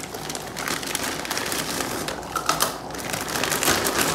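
Thin plastic lasagna packet crinkling, with irregular clicks of stiff dry lasagna sheets being pulled out of it.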